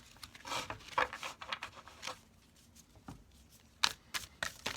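Light handling noises at a desk: soft rustling in the first second or so, then a few sharp, isolated clicks.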